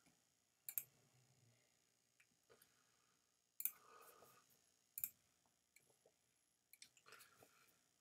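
A few quiet, separate computer mouse clicks: one about a second in, two around four to five seconds in, and a short cluster near seven seconds.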